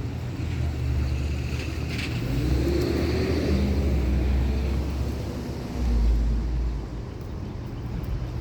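Large Trane Weathertron commercial heat pump running: a steady low mechanical hum with the rush of its four outdoor fans. Around the middle, a sound slides upward in pitch, and a stronger low swell comes near the end.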